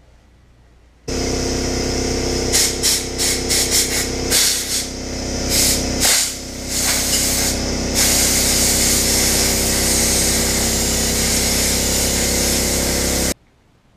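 Motor-driven air tool working at the carburettor: a steady motor hum under loud rushing air. The air comes in a quick run of short blasts, then runs continuously, and everything cuts off abruptly near the end.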